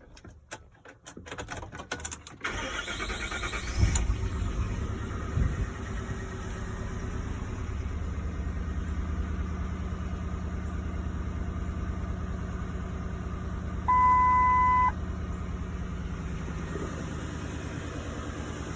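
Ford F-150 engine cranking and catching about two and a half seconds in, flaring briefly, then settling into a steady idle. A one-second beep sounds over the idle near the end.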